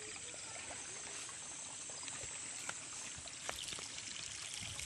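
Steady, even hiss of outdoor ambience in a rice field, with a few faint clicks.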